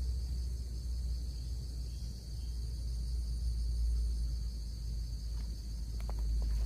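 Steady high chirring of insects, with a low rumble underneath and a few faint clicks near the end.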